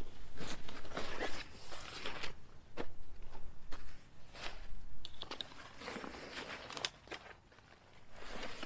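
DEERFAMY folding camping cot being unpacked and handled: irregular rustling and crunching with several sharp clicks and clacks, quieter for about a second near the end.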